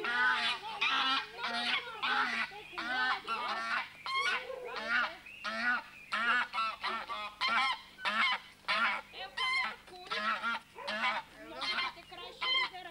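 Domestic geese honking, a constant stream of short rasping calls, several a second.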